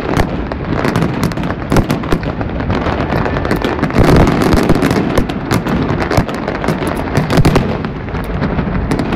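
Aerial firework shells bursting in a dense, continuous barrage: many sharp bangs and crackles overlapping with no gaps, loudest about four seconds in.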